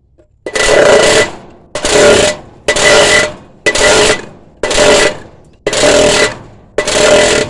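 Cans being crushed one after another: a run of seven loud crunches, about one a second, each with a short metallic ring.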